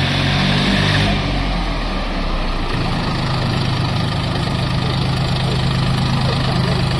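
Engine of a mini 4x4 farm tractor / utility vehicle running; the note shifts a little under halfway through, then holds as one steady drone.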